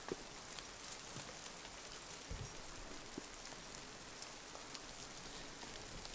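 Meltwater dripping from snow-laden pine trees as the snow on the branches thaws: faint, scattered drops pattering down like light rain.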